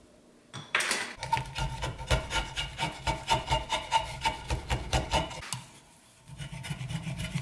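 Repeated scraping strokes of a hand tool shaving down a white oak axe handle. The strokes begin just under a second in, pause briefly near the end, then start again.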